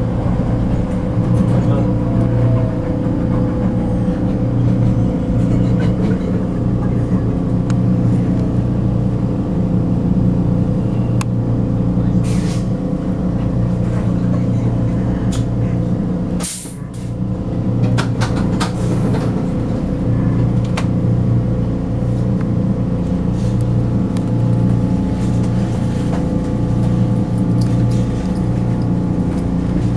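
Vienna U-Bahn metro train heard from aboard, with a steady motor hum and running noise as it moves along the platform at Kaisermühlen-VIC station. A few short clicks and knocks, and a brief dip in the noise a little past halfway.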